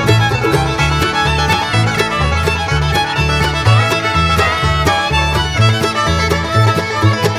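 Background bluegrass-style instrumental music with fiddle, banjo and a steady bass line.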